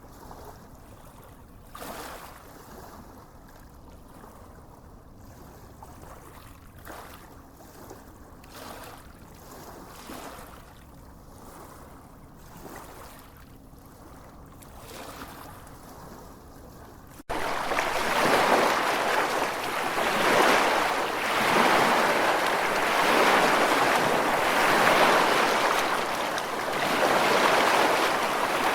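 Gentle waves washing onto a sandy beach, soft swells of surf noise coming and going. About two-thirds of the way through the sound cuts abruptly to much louder, fuller surf that keeps swelling and easing.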